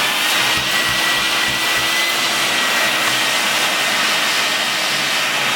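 Craftsman 2.5-gallon, 1.75 peak HP wet/dry shop vac running steadily at full speed: a loud rush of air with a steady high whine from the motor.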